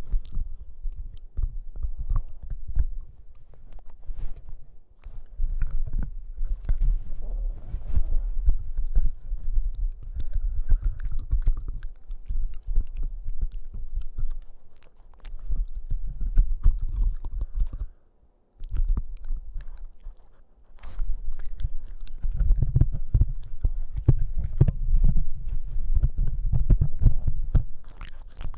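Boston Terrier puppy chewing and gnawing on a microphone in a wire shock mount: irregular wet mouth sounds and teeth clicks over heavy low thuds and rumbling. There is a short pause about two-thirds of the way through.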